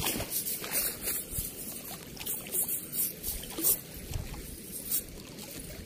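Water dripping and pattering from a wet cast net full of catch as it is held up and lowered to the ground, with irregular short splashy patters. A steady rush of flowing water lies underneath.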